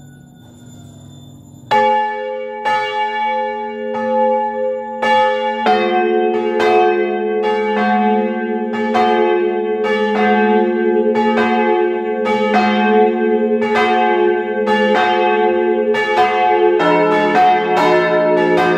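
The parish church's five swinging bells, the small, middle-small, noon, middle-large and large bell, heard up close in the belfry as they start ringing together. The first clapper strikes come in about two seconds in. More bells join about six seconds in and again near the end, so the ringing thickens into a full peal.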